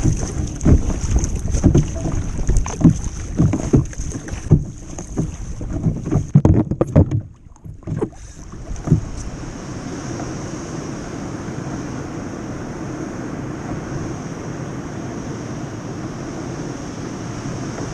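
Wind buffeting the microphone, with uneven splashes and knocks of surf around a kayak. About nine seconds in this gives way to a steady rush of wind and sea.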